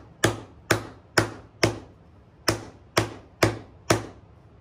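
Nylon-headed hammer striking a metal disc resting on a leather sandbag, sinking it into a dish. Sharp, evenly paced blows about two a second, with a brief pause just before the middle.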